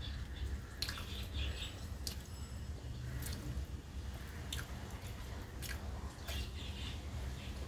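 Close-up chewing of soft rice eaten by hand, with wet squishes as fingers mix rice on a metal plate and a few short sharp clicks spread through, over a low steady hum.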